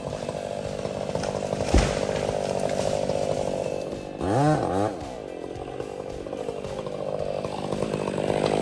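Chainsaw running steadily, with a sharp knock a little under two seconds in and a short pitched sound rising and falling about four seconds in.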